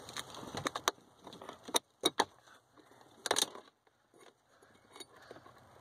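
Several sharp clicks and snaps of brittle plastic Volvo 240 dashboard trim being worked by hand as the defrost vent tabs are unlatched, with quiet gaps between them.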